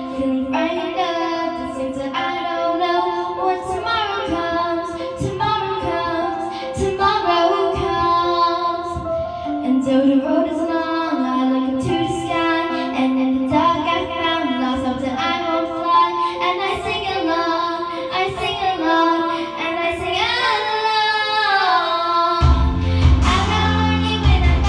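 A young girl singing a pop song into a handheld microphone over an instrumental backing track; a heavy low bass line comes in near the end.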